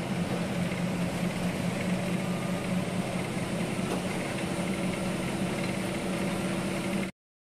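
KSRTC Sariga bus running at a steady cruising speed: the diesel engine's steady low drone under road and tyre noise. It cuts off suddenly near the end.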